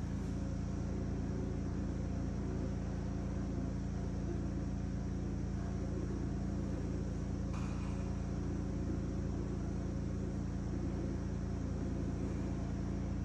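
A motor running steadily with a constant low hum, not under load, with a faint knock about seven and a half seconds in.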